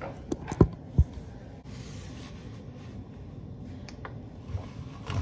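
Objects being handled on a kitchen counter: a few sharp knocks and taps in the first second, then a soft hiss lasting about a second, over low handling noise.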